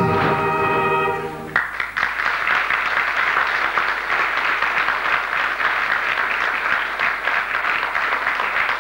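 A song's final held chord cuts off about a second and a half in, and an audience then applauds steadily with dense clapping.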